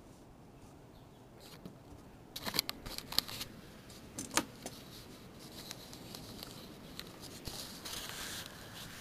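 Handling noise: a cluster of light clicks and rattles about two and a half seconds in, another click near four and a half seconds, then a faint rustling.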